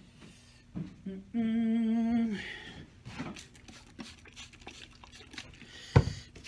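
A man hums one steady note for about a second. Then a plastic trigger spray bottle gives a run of short squirts of water onto the leather sole of a shoe, and a single sharp knock near the end is the loudest sound.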